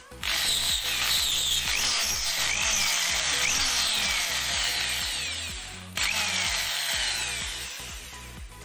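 Electric drill boring a hole through a white multiwood lure blank, with whining squeals as the bit cuts. It runs in two bursts: the first for about five seconds, then after a brief dip a second start that fades out near the end.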